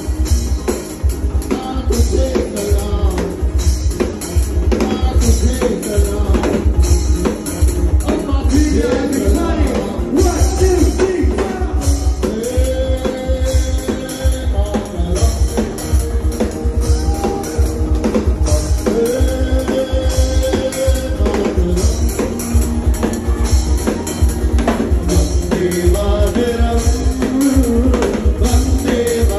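Live band playing a song: acoustic guitar and a drum kit keeping a steady beat under male lead vocals.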